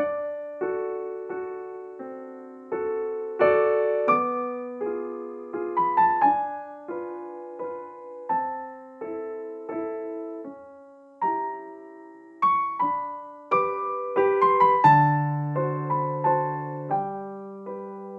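Slow, gentle solo piano music: single notes and chords struck one after another, each ringing and fading away, with deeper bass notes coming in about three-quarters of the way through.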